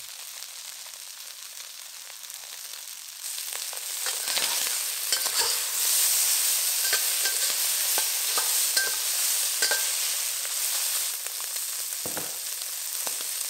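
Prawns sizzling in hot oil in a wok as they brown on their second side. A metal spatula turns them, scraping and clicking against the wok, and the sizzle grows louder about three seconds in.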